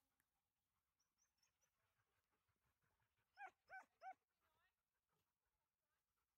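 A dog gives three quick, high-pitched barks in a row, followed by a faint whine.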